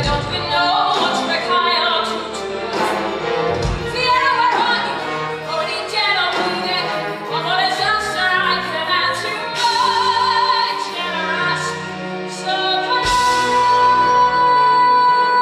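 A female musical-theatre singer belting a dramatic song over a live orchestra. Near the end she holds one long steady note.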